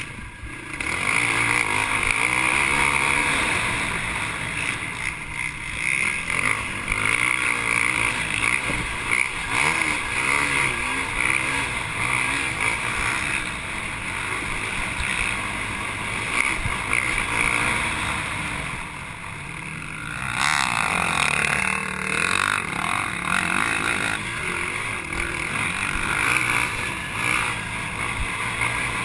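Race ATV engine running hard under throttle, heard from on board the quad, rising and falling with the riding. It eases off briefly about two-thirds of the way through, then picks up again.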